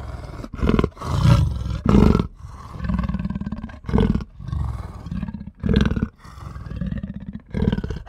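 A big cat growling: a string of short, rough growls, one after another with brief pauses between them.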